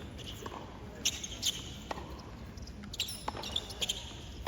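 Tennis ball impacts in a stadium: about six sharp pops and thuds, a few tenths of a second to a second apart, over a low crowd murmur.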